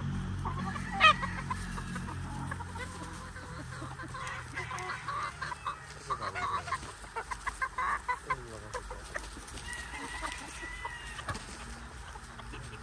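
A flock of chickens, roosters and hens, clucking as they feed. A short, loud call comes about a second in, and a rapid run of short clucks follows in the middle.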